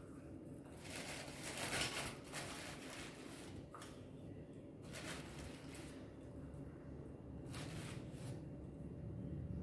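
Faint rustling and scraping of jaggery being measured out with a cup and tipped into a vessel, in a few soft bursts, the loudest about a second in.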